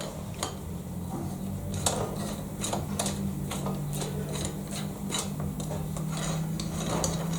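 Light metallic clicks and clinks, a dozen or so at uneven intervals, as small steel parts and Allen screws from a milling vice are handled and set down.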